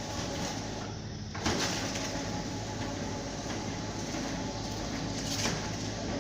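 Motorised roller shutter door running, its slats giving a steady rattling rumble over a low motor hum, with a knock about one and a half seconds in.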